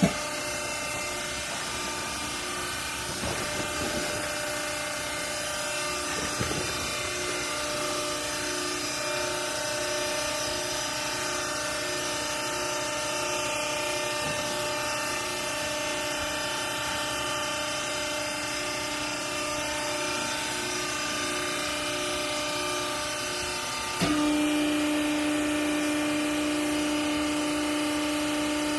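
Hydraulic power unit of a horizontal clothing baler, its electric motor and pump running with a steady whining hum. About 24 seconds in it turns abruptly louder and the hum drops slightly in pitch, as if the pump has come under load.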